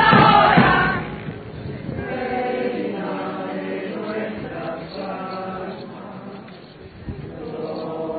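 A crowd of people singing together in chorus: loud in the first second, then softer and held on long sung notes.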